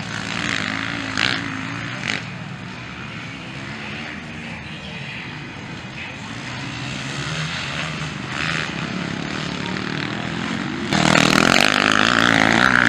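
Motocross bike engines running on the track, their pitch wavering as riders throttle and shift. About eleven seconds in, a bike close by accelerates hard and much louder.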